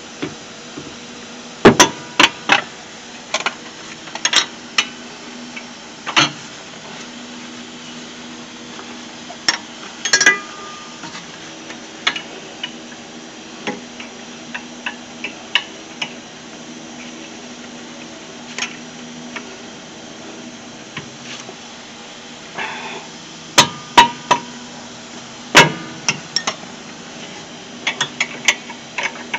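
A steel wrench clinking and knocking against a car's rear brake caliper bracket and its bolts as the bracket is being unbolted. The sharp metal clicks come irregularly, in clusters near the start, about a third of the way through, and again toward the end.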